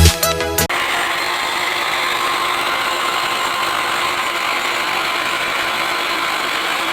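A small power tool running steadily, with an even whirring noise that starts as the music cuts out under a second in.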